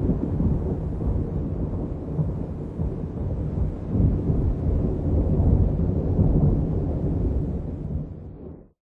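Thunder rumbling, a long low rolling rumble that swells twice, then fades and cuts off abruptly near the end.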